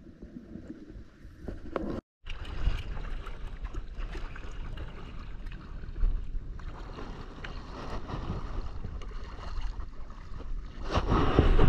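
Muffled underwater sound from an action camera for about two seconds, then, after a cut, water sloshing and wind buffeting on the camera's microphone as it is carried at the waterline through shallow sea, getting louder near the end.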